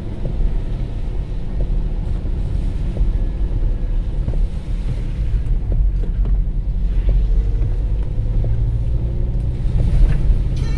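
Steady low rumble of wind buffeting the microphone, with a few faint scattered ticks from light rain.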